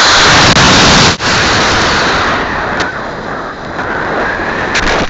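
Estes C-class solid-fuel model rocket engine firing at liftoff: a loud rushing hiss that starts suddenly, dips briefly about a second in, then carries on slightly quieter before falling away near the end.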